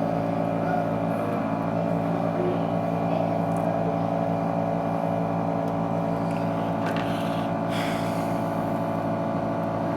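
A steady mechanical hum made up of several steady tones, with a couple of faint clicks about seven and eight seconds in.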